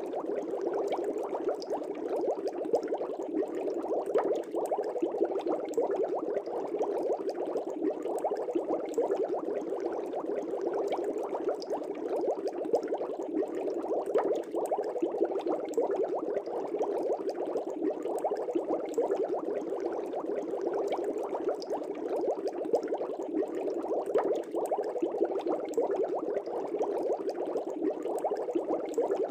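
Air bubbles rising and breaking in an aquarium: steady, dense bubbling with many tiny pops.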